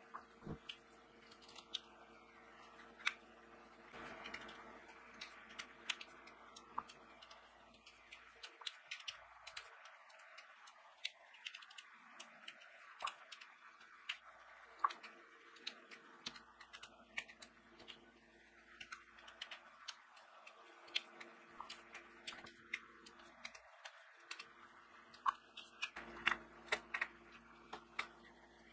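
Diamond-painting drill pen picking up and pressing small resin drills onto the sticky canvas: faint, irregular little clicks, a few a second, over a faint steady hum.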